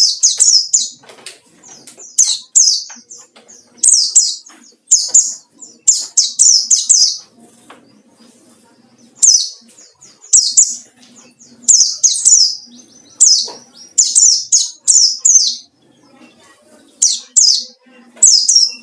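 Wild-caught white-eye (pleci) singing a challenge song at a rival: rapid, high chirping phrases of about half a second to a second each, repeated with short pauses.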